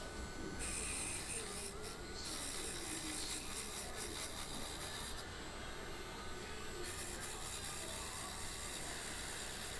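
A Dremel Lite cordless rotary tool runs with a buffing wheel pressed against the bare diecast metal body of a toy car, a steady rubbing as the stripped metal is polished.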